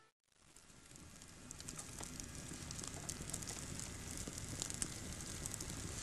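A crackling, hissing noise with many small sharp pops that fades in after a brief silence and grows steadily louder.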